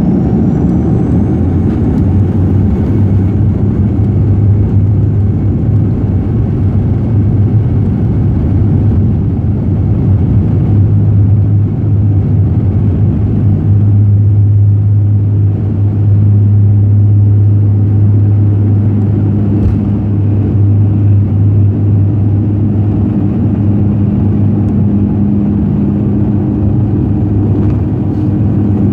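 Twin turboprop engines of a Dash 8 airliner at takeoff power, heard from inside the cabin: a loud, steady propeller drone with a strong low hum through the takeoff run and into the climb.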